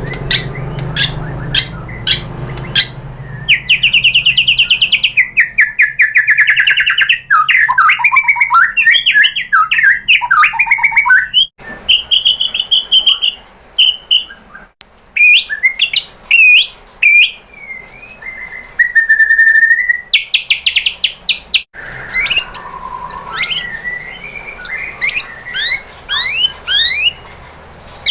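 White-rumped shama (murai batu) singing a long, varied song as a lure recording. It opens with rapid ticks, moves into a buzzy falling trill, then warbled phrases and clear whistles, and ends with a run of quick rising notes.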